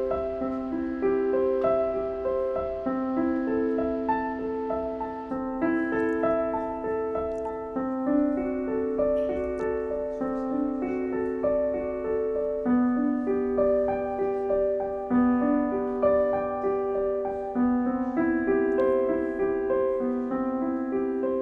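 Background music: a piano playing a melody of held notes over a steady accompaniment.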